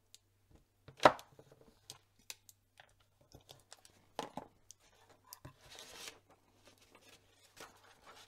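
Craft supplies handled on a tabletop: one sharp knock about a second in, then scattered light taps and clicks of pads and a stamp block, and sheets of paper sliding and rustling around six seconds in.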